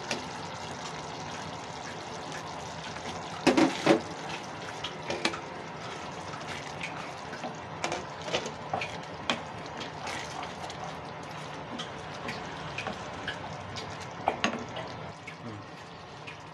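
A pot of tomato stew simmering on the stove with a steady bubbling hiss, while a spoon stirs and knocks against the pot in scattered clicks. A brief loud clatter comes about three and a half seconds in.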